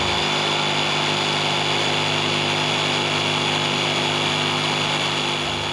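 Corded electric jigsaw running at a steady speed as its blade cuts through a wooden board, a constant motor whine with the blade's rapid chatter.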